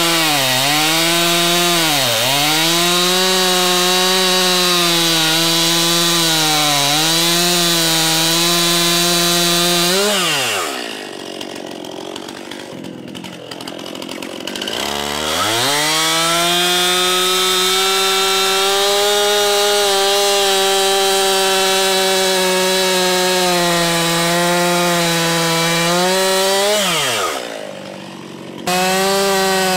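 Stihl two-stroke chainsaw at full throttle cutting into a fresh pine log, its pitch dipping again and again as the chain bogs in the wood. About ten seconds in the throttle is released and the saw falls back toward idle for a few seconds. It then revs up again and cuts steadily, is let off once more near the end, and comes back suddenly at full revs.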